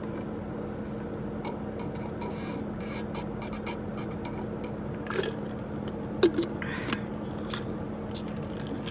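Steady hum of a car cabin with the engine idling, with scattered small clicks and scrapes of things being handled; the sharpest click comes about six seconds in.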